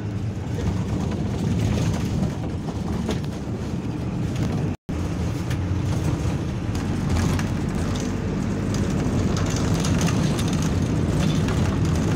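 Bus engine and road noise heard from inside the passenger cabin while driving, a steady low hum with faint rattles. The sound cuts out for a moment about five seconds in.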